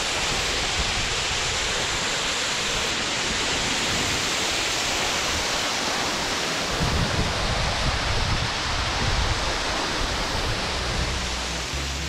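A waterfall close by, with water falling onto rock and splashing down it in a steady, dense rush.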